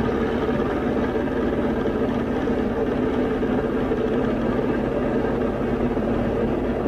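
Diamond DA40's piston engine and propeller droning steadily inside the cabin at reduced approach power.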